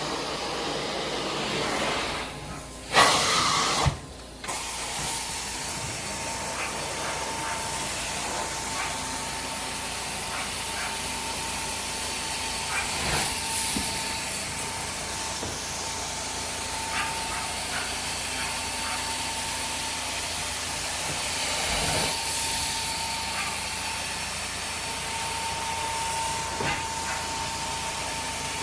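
Carpet-cleaning machine running: a steady hiss of suction and spray with a thin motor whine. The sound drops out briefly with a short loud burst about three seconds in, then runs evenly.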